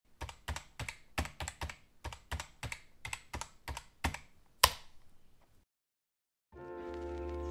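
Typing on keys: about a dozen clicks at an even pace of roughly three a second, ending on one sharper, louder stroke. After a short pause, music fades in near the end.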